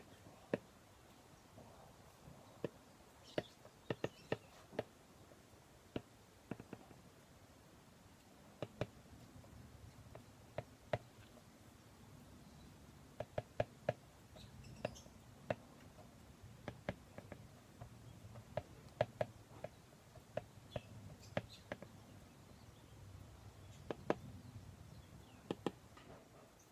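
A plastic stylus tip, such as an Apple Pencil's, tapping and clicking on a tablet's glass screen during handwriting. The clicks are light and irregular, some single and some in quick runs, over a faint low hum.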